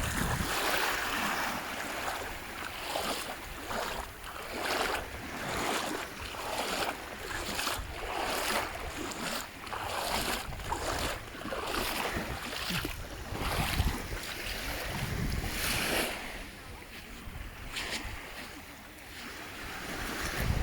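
Sea waves washing on the shore, with wind buffeting the microphone.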